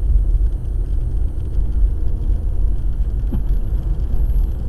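Low, steady rumble of a car driving, picked up inside the cabin by a dash cam as the car gathers speed on a wet road.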